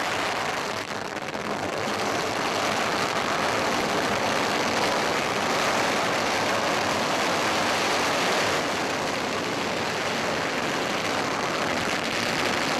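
Long strings of firecrackers going off without a break: countless small bangs merge into one dense, steady crackle, building up over the first couple of seconds.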